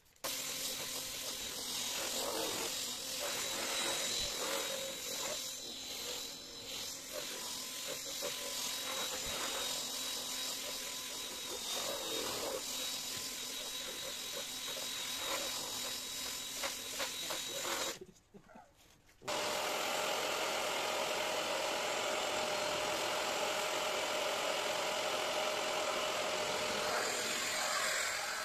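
A drill spinning a brush pad over a fabric car seat, its motor note and scrubbing uneven as it is worked across the cloth. After a short break about two-thirds through, a Bissell SpotClean Pro carpet extractor runs with a steady motor while its nozzle draws the cleaner back out of the seat.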